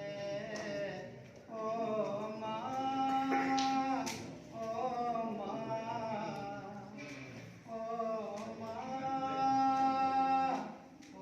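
A man singing a Hindi song in a melodious voice: two phrases, each ending on a long held note.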